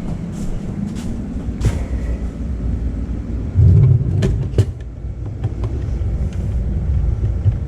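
Steady low rumble with scattered light metallic clicks and taps as a billet fuel-system fitting is handled and tightened, with a short, loud low thud about halfway through.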